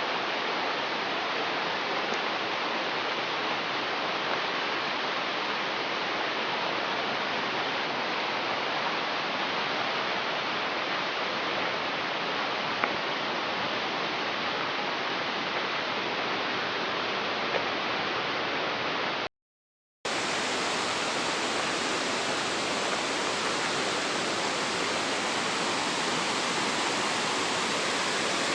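Steady rush of a fast mountain stream, the Tar stream, running through the valley. The sound drops out completely for under a second about two-thirds of the way through, then goes on as before.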